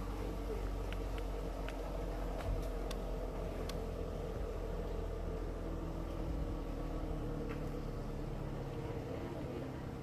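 A steady mechanical hum with pitched tones that drift slightly, with a few light clicks in the first few seconds.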